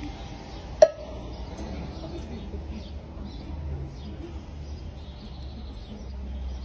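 A pause in the one-man band's playing: a steady low outdoor rumble with faint high chirps, broken by one sharp knock about a second in that rings briefly.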